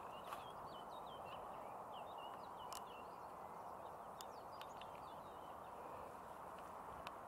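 Steady rushing noise of wind and tyres on a bicycle ride, with a small bird singing rapid, short chirping notes over it during the first five seconds and a few light clicks.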